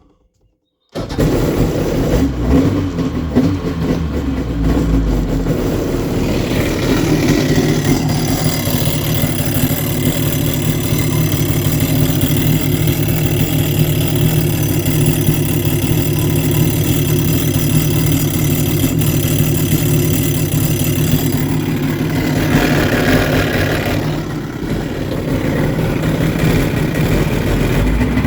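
Sea-Doo XP 951's two-stroke twin starting about a second in and then idling steadily, with the loud noise from the jet at idle that the owner is showing. From about six seconds a high-pitched whine rides over the idle for much of the time, then changes near the end.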